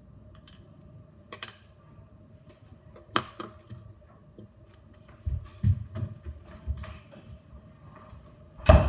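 Scattered clicks and soft knocks of frozen silicone fidget toys being handled in a bowl, a few low thumps after the midpoint and the loudest just before the end, over a faint steady hum.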